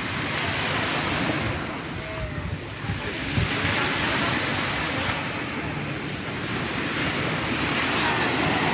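Small waves breaking and washing up on a sandy shore, the hiss swelling and fading every few seconds, with wind buffeting the microphone. One brief knock a few seconds in.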